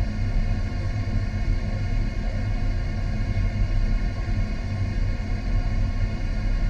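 A steady, deep rumble with a constant layered hum and no distinct events.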